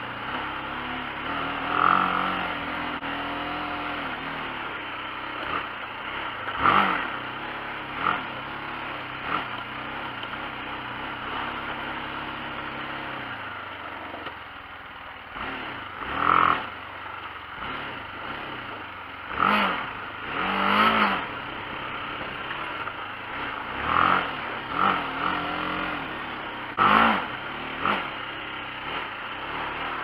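Adventure motorcycle engine running on a dirt track, its pitch rising and falling with the throttle, with several short, louder surges. Gravel and loose parts clatter beneath it.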